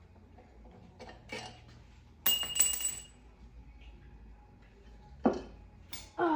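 Metal tools and engine parts clinking and knocking together: a few light clicks, then a loud ringing metallic clink about two seconds in, and another knock near the end.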